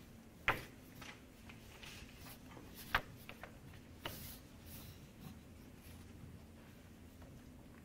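Footsteps of a small group of people walking on carpet in dress shoes, with scattered soft ticks and two sharper clicks, about half a second and three seconds in, over a faint steady hum.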